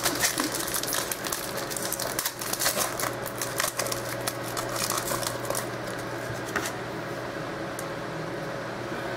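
Trading cards and their packaging being handled: rapid light clicks and rustling that thin out after about six or seven seconds, leaving a steady low hum.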